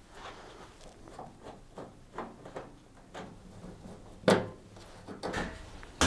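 Sheet-metal side panels of a tumble dryer being lifted off and handled: a series of faint knocks and scrapes, with one louder knock about four seconds in.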